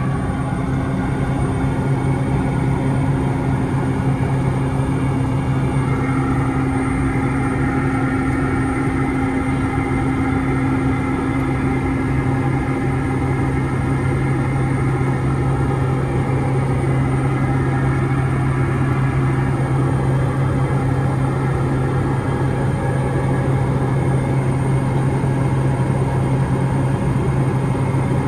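Cabin noise of a Piper Meridian in flight: the single PT6A turboprop engine and propeller make a steady low drone. A higher tone over it fades out about halfway through.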